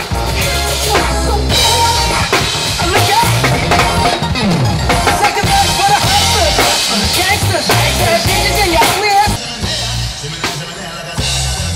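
One-man-band music: a drum kit with cymbals played over pulsing bass and a melody that slides up and down in pitch. It drops in loudness for a moment about nine and a half seconds in.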